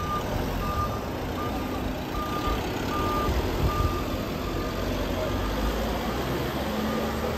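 Paris fire brigade vans' engines running as the vans move slowly past, while an electronic warning beeper sounds steadily at one pitch, about once every three-quarters of a second.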